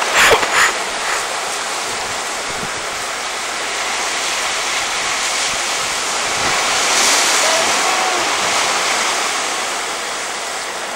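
Sea surf breaking and washing against a rocky volcanic shoreline: a steady rushing that swells about six to eight seconds in.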